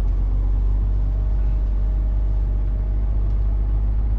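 Heavy goods lorry's diesel engine running steadily at low speed, heard from inside the cab as a deep, even drone.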